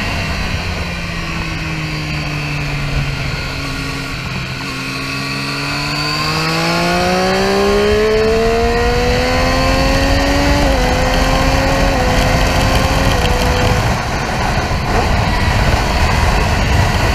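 Triumph Street Triple R's three-cylinder engine heard from on board on a track lap. The engine note falls as the bike slows through a bend, then rises steadily under acceleration and drops in three small steps, before a loud rush of wind on the microphone takes over.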